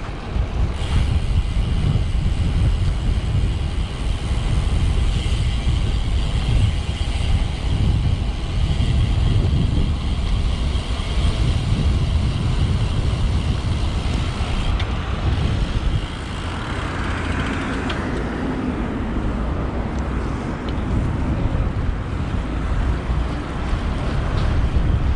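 Wind rushing over the microphone of a moving road bike, a heavy low rumble, with road traffic noise around it; a swell of tyre-like hiss rises about two-thirds of the way in.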